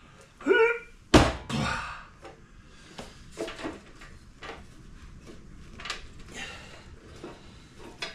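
A heavy portable thickness planer set down on a concrete floor with a loud thud about a second in, followed by lighter knocks and clicks as it is handled and its power cord is pulled out.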